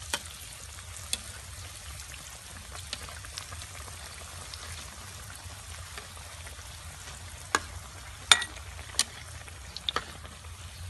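Battered banana pieces deep-frying in a wok of hot oil, a steady sizzle. Several sharp clicks come through it, the loudest about eight seconds in.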